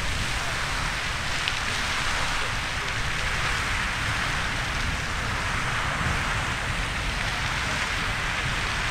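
Riverside Geyser erupting: its water and steam column and the spray falling back make a steady rushing hiss, with a low rumble underneath.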